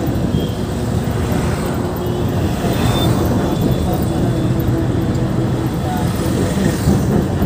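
Inside a moving bus: the engine and road noise make a steady low rumble, with passing traffic outside.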